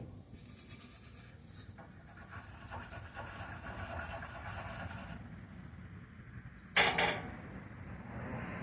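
Abrasive scrubbing on a copper battery bus bar, polishing it to a bright shine for a clean connection, running for about three seconds. A sharp double knock, the loudest sound, comes about seven seconds in.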